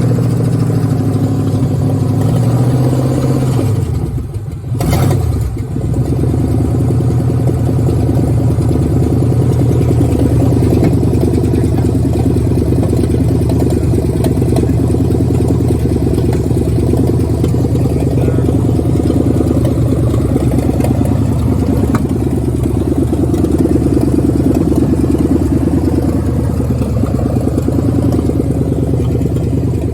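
Throttle-body-injected truck engine running loud with its exhaust open at the manifolds, no pipes or muffler fitted. About four seconds in it briefly falters, then settles back into steady running.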